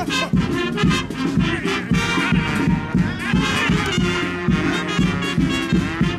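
Brass band playing a lively tune over a steady beat, with trumpet and trombone.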